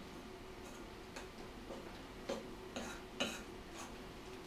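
Spoon clinking and scraping against a bowl while stirring a thick rye flour and water batter for a sourdough starter: about half a dozen light knocks, roughly two a second, of uneven strength.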